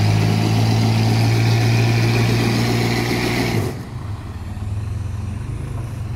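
Mitsubishi Pajero V6 engine held at steady high revs under load as it pulls a stuck truck out on a tow strap, then the revs drop off suddenly about four seconds in and it runs on quieter.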